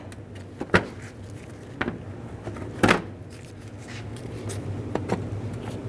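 Plastic push pins being pulled out of the radiator support cover with push pin pliers: a few separate sharp clicks and snaps, the loudest about three seconds in, over a low steady hum.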